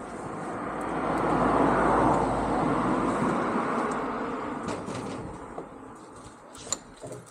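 A vehicle passing on the road, its noise swelling to a peak about two seconds in and fading away over the next few seconds.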